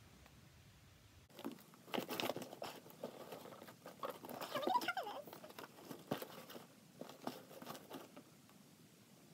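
A cardboard mailing box being handled and moved about, with quiet irregular rustling, crinkling and light taps. The noise begins about a second in and is busiest around the middle.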